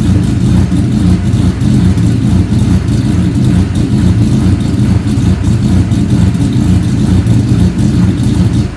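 Turbocharged Ecotec 3.8 V6 of a Holden Commodore running loud and steady through its exhaust, now fitted with a second resonator to cut the drone, which gives it a deeper note. The engine is shut off at the very end and the sound dies away.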